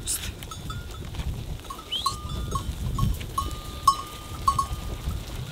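Bells on a flock of sheep clanking irregularly, a run of short ringing tones over a low rumble from the moving flock.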